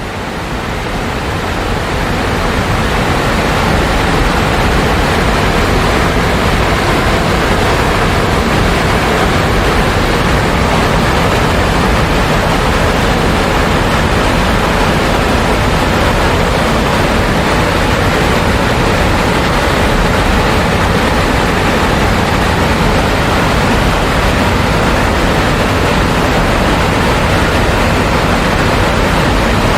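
Steady rushing of falling water from a waterfall. It rises over the first few seconds, then holds loud and even.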